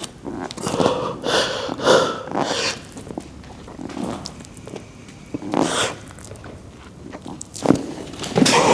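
A man grunting and exhaling hard while straining through heavy dumbbell shoulder presses: three short grunts in quick succession about a second in, then single ones near the middle and near the end.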